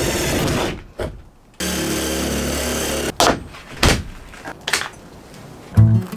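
Cordless drill-driver running in two short bursts, backing out a screw from a plastic ceiling fitting, then a few sharp clicks and knocks as the fitting is pulled free. Music with a steady beat comes in near the end.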